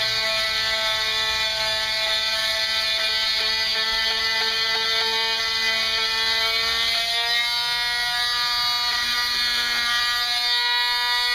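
Electric sanding tool running with a steady buzzing hum; its pitch shifts about seven seconds in.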